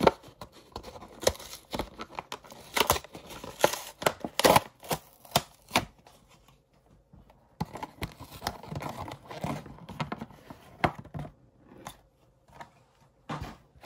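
Clear plastic blister packaging being opened and handled: a run of sharp plastic cracks and crinkles, a pause of about a second and a half, then more rustling and a few clicks as the plastic tray and toy cars are moved.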